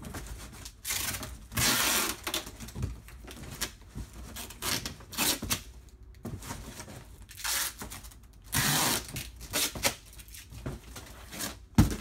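Packing tape being pulled off a tape dispenser in several strips with a ripping rasp and torn off, against the flaps of a cardboard box. There is a sharp knock near the end.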